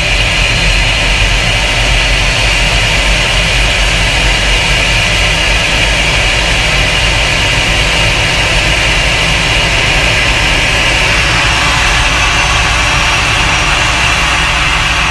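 Towbarless pushback tug's engine running steadily under load as it pushes back an Airbus A320, heard from the tug's cab: a low rumble with a steady high jet-like hiss and whine over it, the hiss growing fuller about eleven seconds in.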